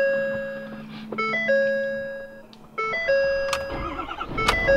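Ford Super Duty diesel pickup's dashboard warning chime repeating: a quick rising pair of notes settling on a fading held tone, about every second and a half. Near the end the diesel engine cranks and starts with a low rumble.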